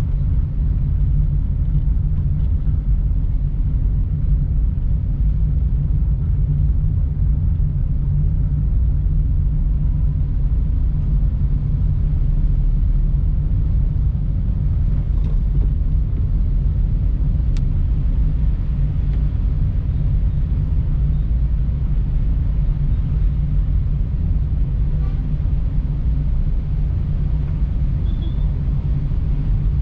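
A car driving, with a steady low rumble of engine and tyres on the road.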